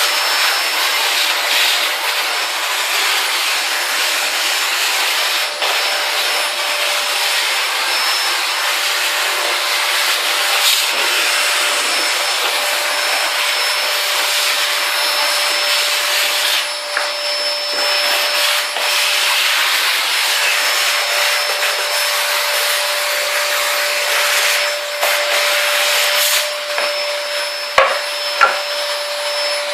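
A Samsung 1600 W vacuum cleaner running steadily, a constant whine over the rush of its suction. Two short knocks come near the end.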